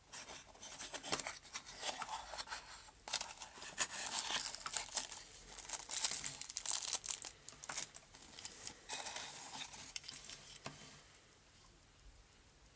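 Packaging being opened by hand: irregular crinkling, rustling and tearing with small handling clicks, dying away about ten seconds in.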